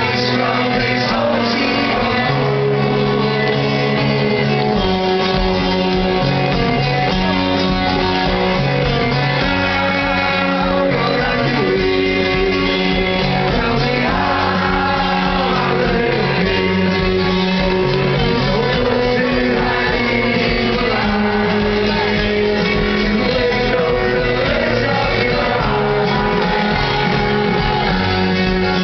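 A rock band playing live, with guitar and singing, loud and unbroken, and shouting over the music.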